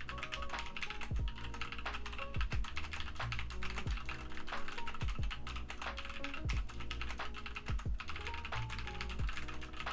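Fast, continuous typing on a computer keyboard: a rapid clatter of keystrokes during a timed typing test, over lo-fi background music with a steady beat.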